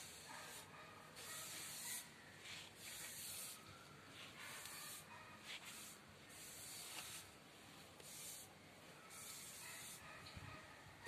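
Faint swishing of a brush dragged in strokes across a painted wooden panel, laying on a teak wood-grain finish. The swishes come about once a second, unevenly spaced.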